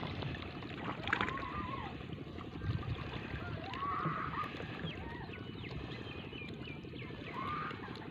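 Water sloshing and gurgling around a banana-trunk raft moving through floodwater, a steady rough wash with a few short, high arching calls coming and going above it.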